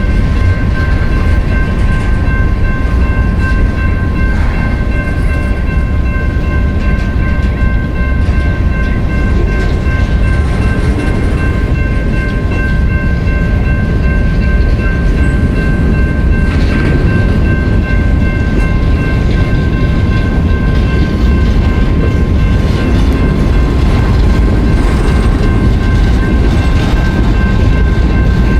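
Freight train rolling past, a loud steady rumble, with several steady high tones running through it the whole time.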